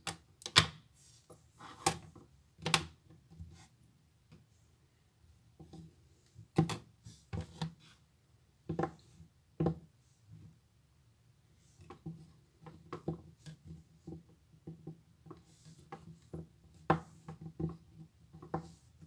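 Hands handling play-doh and the tools around it on a desk: irregular taps, knocks and light rubbing as pieces are pressed and set down, the sharpest knocks in the first three seconds.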